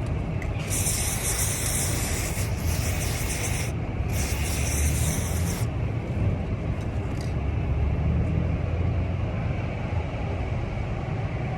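Aerosol can of dry lube spraying in two bursts, the first about three seconds long and the second about a second and a half, lubricating the plunger springs of a truck starter. A steady low rumble runs underneath.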